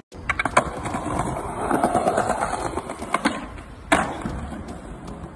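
Skateboard wheels rolling over paving, with sharp clacks of the board: a few near the start, more around three seconds in, and the loudest, a hard landing, about four seconds in.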